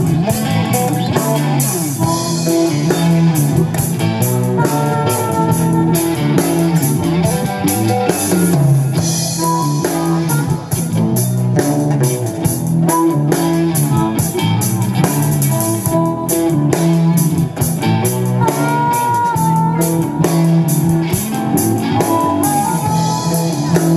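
Live rock band playing amplified through a PA: electric guitar, bass guitar and drum kit with steady cymbal hits, over an acoustic guitar. A harmonica plays long, bending melody notes over the band.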